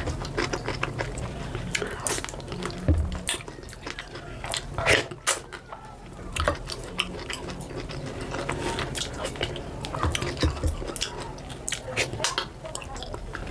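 Close-miked eating sounds of fufu and soup: wet mouth smacks and chewing, with many irregular short clicks.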